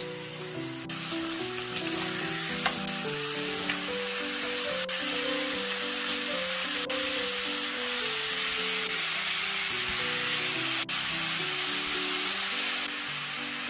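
Slices of pork belly sizzling as they fry in a frying pan. The sizzle comes up loudly about a second in and drops back near the end.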